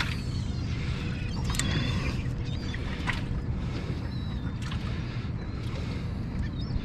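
Steady wind and water noise around an open fishing boat, with a few scattered sharp clicks and knocks.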